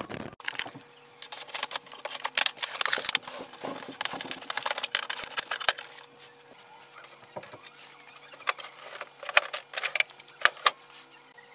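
Unboxing noises: irregular rustles, scrapes and clicks as scissors cut the tape on a cardboard printer box, the flaps are opened and packing tape is pulled off the printer.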